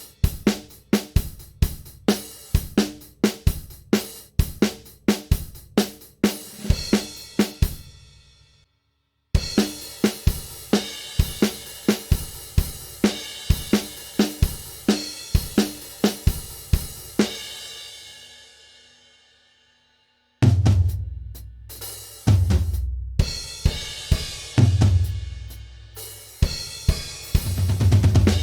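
Sampled drum kit from the Stigmatized Drummer Kontakt library playing demo patterns of kick, snare and cymbals in a steady beat. The first two patterns stop about 8 and 19 seconds in, each cymbal ringing out into a short silence. The third pattern, from about 20 seconds in, has a much heavier low kick.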